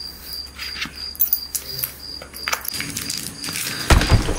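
Crickets chirping in a steady pulsing trill, over small metallic clinks and rustles of a belt buckle being worked. Near the end comes a heavy thump, the loudest sound here.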